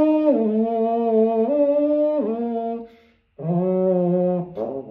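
3D-printed natural French horn played in sustained notes: a held note steps down, back up and down again, breaks off about three seconds in, then a lower note and a few shorter, wavering notes near the end. Most of the inside of its printed tube walls is hollow, which the maker says ruins the resonance and makes it sound awful.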